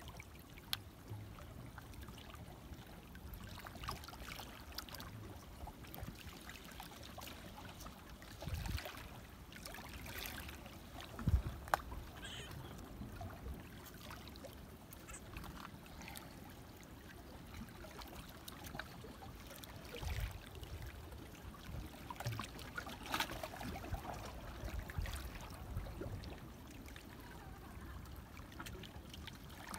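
Small waves lapping and trickling against the breakwater rocks, with scattered light clicks from fishing tackle being handled and a few soft knocks, the loudest about eleven seconds in.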